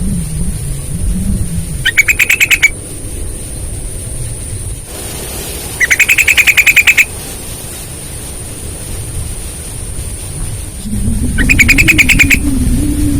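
Yellow-vented bulbul (trucukan) singing three short bursts of rapid, evenly spaced rattling notes, about a second each and a few seconds apart. A low wavering hum runs underneath.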